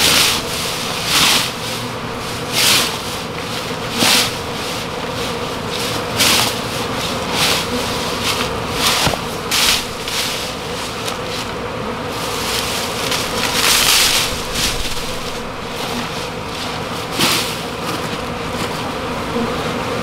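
Many honey bees from a disturbed hive flying around and buzzing in a steady, dense hum, with short louder swishing swells every second or two.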